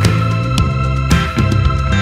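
Music with a steady drum beat, about two beats a second, over sustained instrument notes.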